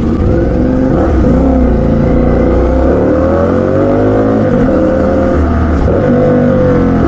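CFMoto 450SR motorcycle's parallel-twin engine revving, its pitch rising and falling several times.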